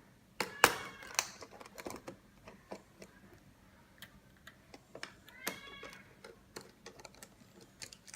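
A cat meowing, one clear call about five and a half seconds in, over sharp clicks and taps of hands and tools working on a plastic car display unit, the loudest tap just after the start.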